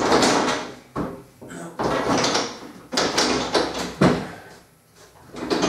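Red metal motorcycle lift bench being dragged and wiggled out from under a shelf: a series of short scrapes and slides of its frame on the floor, about one a second, the loudest at the start.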